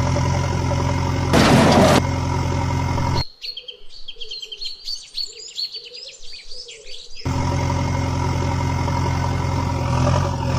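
A steady idling engine hum, with a short rush of noise about a second and a half in. It cuts out abruptly after about three seconds, leaving about four seconds of small birds chirping, then the same engine hum comes back.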